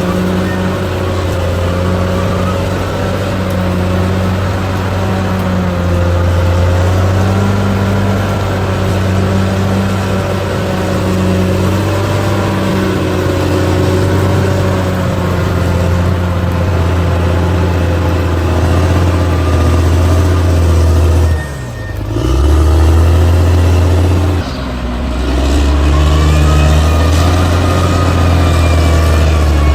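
Bulldozer's diesel engine running steadily under load, its deep note rising and falling a little. Twice, a little over twenty seconds in, the sound briefly drops away and comes back.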